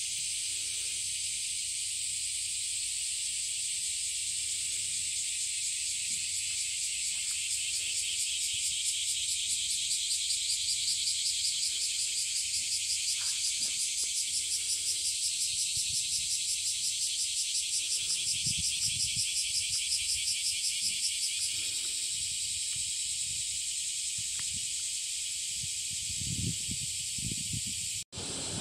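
A dense chorus of cicadas: a steady high hiss that swells in the middle and pulses rapidly and evenly. There are a few faint low rumbles near the end.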